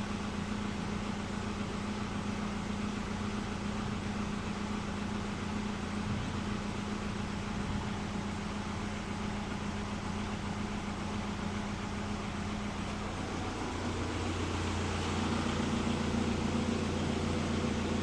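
Steady low mechanical hum with a droning tone throughout, changing character and getting slightly louder about three-quarters of the way through.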